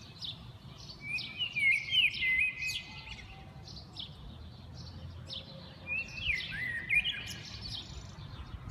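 Songbirds singing: one bird gives two loud whistled, warbling phrases with swooping notes, about a second in and about six seconds in, while other birds chirp briefly throughout.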